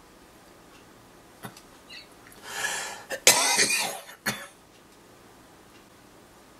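A man coughing: a building rush of breath, then a sudden harsh cough a little over three seconds in and a short, smaller one right after.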